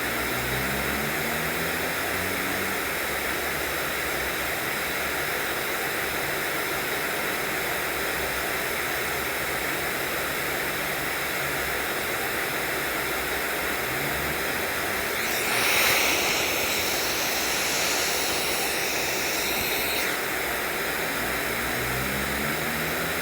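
Steady white-noise hiss played as a sleep sound, with a brighter, slightly louder stretch of hiss lasting about five seconds, starting about fifteen seconds in. Faint low rising tones come in a few times underneath.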